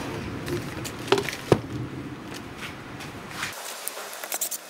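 Handling noises: plastic wrapping rustling and the polisher knocked against the wooden bench twice, about a second and a second and a half in. About three and a half seconds in, the low rumble cuts off abruptly and quick light clicks follow.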